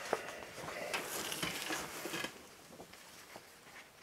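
Faint rustling of a glossy paper poster being handled and unrolled, dying away about two seconds in.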